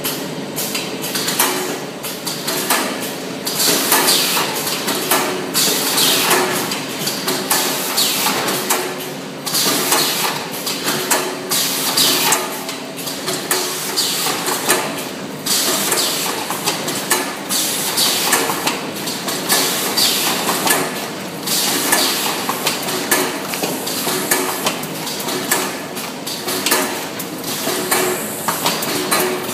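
Automatic cartoning and box-gluing machine running: continuous rapid clattering and knocking from its moving parts over a steady motor hum.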